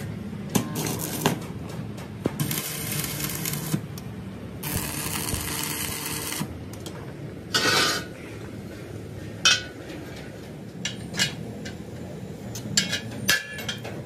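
Compressed-air blow gun hissing in two bursts, about two and a half seconds in and again around five seconds, aimed at a steel wheel rim. A sharp clank follows just before eight seconds, then scattered metallic clinks of tools against the rim.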